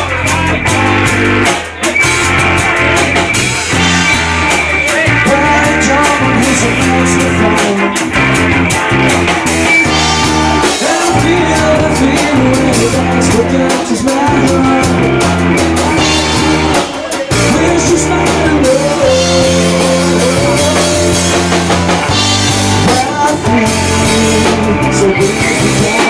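Loud rock music with drums, guitar and a sung vocal, played over a sound system.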